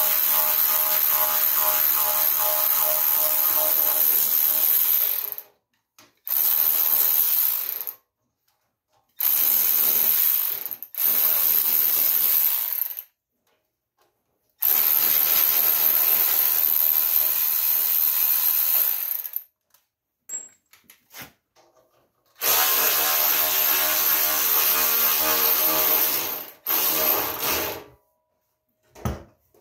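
Cordless electric ratchet whirring in repeated runs of one to five seconds, stopping and starting about seven times, as it spins bolts on a tractor frame.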